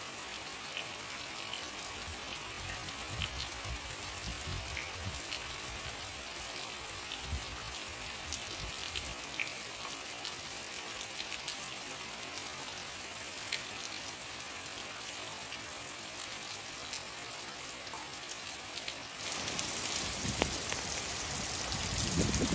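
Steady rain falling on a wet farmyard, an even hiss with scattered ticks of drops. It grows louder about three-quarters of the way through.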